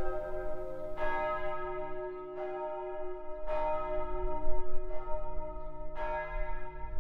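Church bells ringing, a stroke roughly every second and a quarter, each stroke's rich tones ringing on into the next over a low steady hum.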